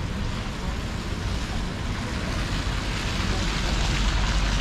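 City street ambience: a steady wash of traffic noise with a low rumble, swelling louder about three seconds in.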